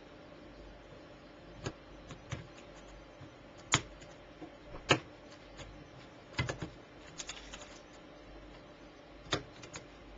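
Diagonal side cutters snipping off the wire leads of components soldered into a small circuit board: several sharp snips at irregular intervals, the loudest two in the middle.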